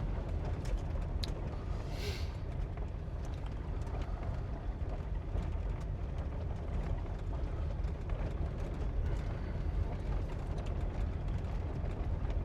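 Steady low road rumble inside a moving vehicle, with a few faint ticks and rattles.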